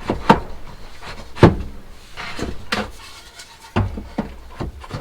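A board being handled and test-fitted as a drawer front piece: a series of sharp knocks and taps, the loudest about a second and a half in, with a brief scrape just after two seconds.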